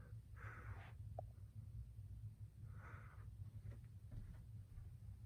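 Near silence: a steady low room hum with two faint breaths, about half a second in and about three seconds in.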